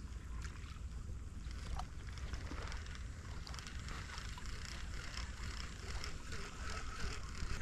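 Small waves lapping at the lakeshore, with a steady low rumble of wind and scattered small clicks.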